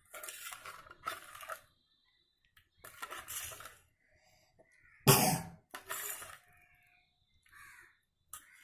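A steel spoon scraping and clinking against a stainless steel bowl in short bursts while stirring jelly powder into hot water until it dissolves, with one louder clank about five seconds in.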